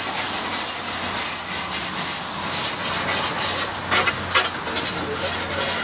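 Wet three-sided grill brush scrubbing a hot Weber Q grill plate in repeated strokes, the water hissing and sizzling into steam against the hot metal.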